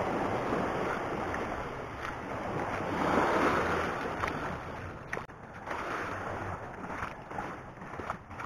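Small waves washing and lapping over a pebble-and-rock shoreline, with wind buffeting the microphone; the wash swells about three seconds in.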